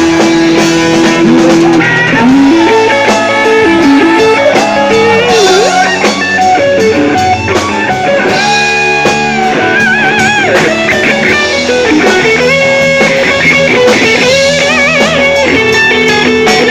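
Loud live rock band with drums and bass under an electric guitar lead, whose notes slide between pitches and waver with vibrato, most clearly around the middle and near the end.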